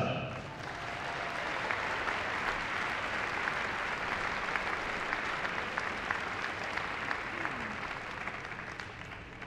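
Audience applauding, a steady mass of clapping that tails off near the end.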